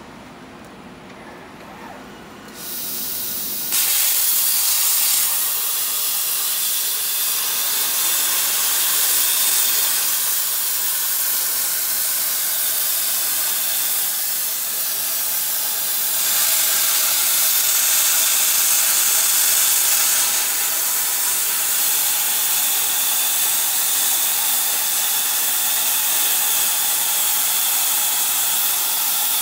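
CNC plasma cutting torch cutting steel plate: a loud, steady, high hiss of the plasma arc. The sound builds in two steps, first about two and a half seconds in, then fully about a second later.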